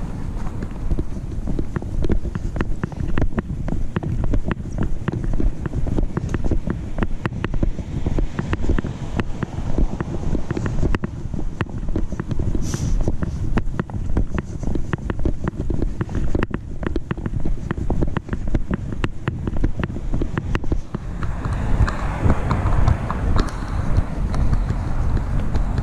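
Low rumble of wind and rubbing on a GoPro microphone clipped to a backpack chest strap, with many short knocks as the camera jolts at each walking step. A broad hiss swells up near the end.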